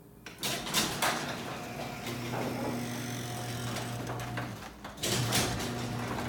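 LiftMaster Security Professional garage door opener's half-horsepower motor starting with a few clicks and running with a steady hum as the door travels. About four and a half seconds in it stops briefly, then starts again: the safety sensor beam has been broken and the opener stops and reopens the door automatically.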